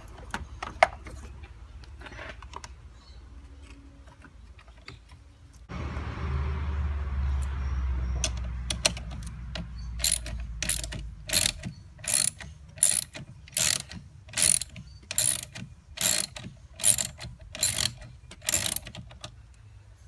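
Socket ratchet wrench worked back and forth on a car battery connection, its pawl clicking on each back-swing. About a dozen even strokes come in the second half, roughly one every three-quarters of a second.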